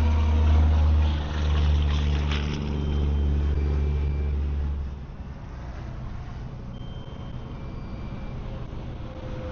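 Truck engine running loudly under load, then easing back to a quieter idle about five seconds in.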